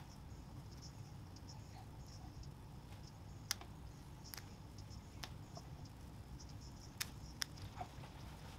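A few scattered, sharp small clicks and ticks from hands working a small hand tool against a hoodie's fabric, over a faint, low, steady room hum.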